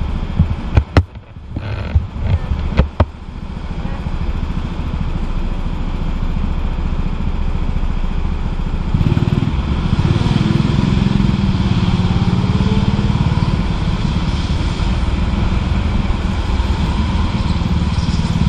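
Go-kart engine running under load, heard from the driver's seat. There are several sharp knocks in the first three seconds. From about halfway the engine grows louder and steadier, with its pitch rising a little as the kart accelerates.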